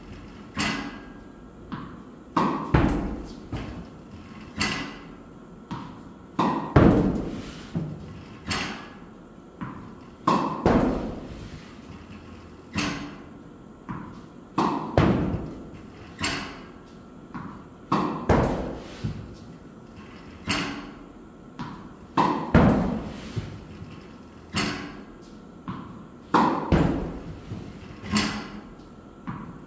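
Tennis racket striking a tennis ball, one backhand about every two seconds, each strong hit accompanied by quieter knocks of the ball bouncing and landing, with a short echo off the walls of a small indoor court.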